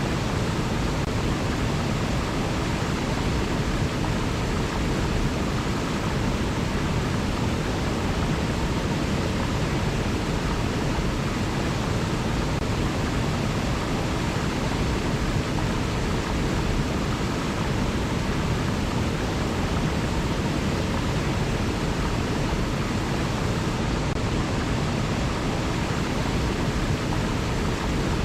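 A river flowing steadily: an even, unbroken wash of water noise with no distinct splashes or bird calls.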